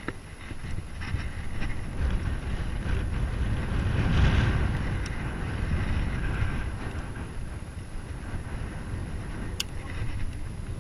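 Wind buffeting the microphone as a steady rushing rumble, swelling to its loudest about four seconds in.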